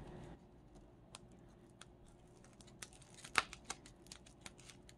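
Scissors snipping and crinkling through black plastic wrapping: a faint scatter of short sharp clicks, starting a little under three seconds in.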